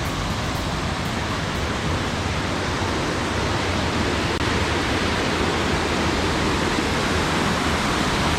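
Creek water rushing, a steady loud rush of water.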